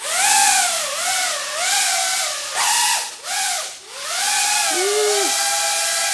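iFlight Protek35 FPV cinewhoop drone in flight: its motors and propellers give a whine over a hiss, the pitch swinging up and down with the throttle and settling to a steady pitch over the last couple of seconds.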